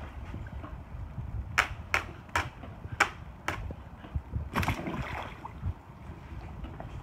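A quick series of sharp taps, about two to three a second, then a short splash of pool water a little after halfway.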